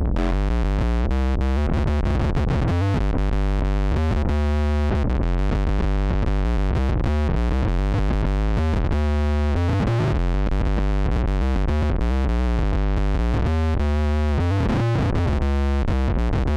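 Electric bass played through an MXR Poly Blue Octave pedal with its fuzz on and an octave down added: a thick, distorted tone with a sub-octave under each note. A continuous line of notes at an even, compressed loudness.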